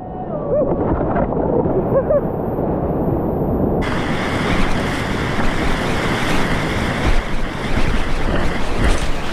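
Rushing whitewater noise of river rapids, muffled for the first few seconds and then suddenly opening up clear about four seconds in.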